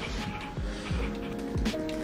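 Background music: sustained chords over a steady low beat.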